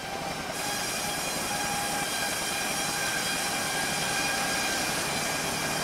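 Steady mechanical noise: a dense, even hiss with faint steady tones running through it, fading in at the start.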